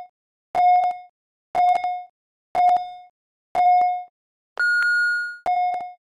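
Workout interval timer's countdown beeps: a short mid-pitched beep about once a second, then a longer, higher beep about four and a half seconds in, followed by one more short beep as the timer reaches 'go'.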